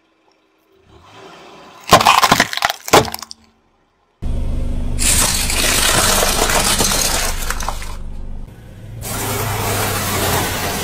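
A car tire rolling over and crushing objects in three separate bursts. About two seconds in come sharp cracks as small wooden boxes break. A dense crackling follows as a cup of dry spaghetti is crushed, then a crunching near the end as blocks of dry instant noodles are flattened.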